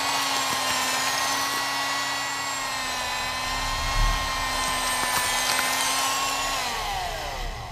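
Electric bone saw running with a steady high whine, then winding down with falling pitch near the end.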